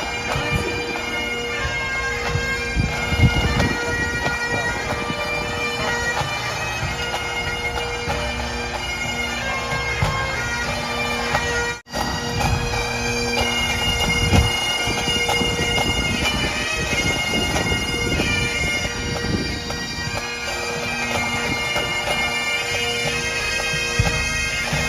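Bagpipes playing a tune over their steady drone, with a brief dropout about halfway through.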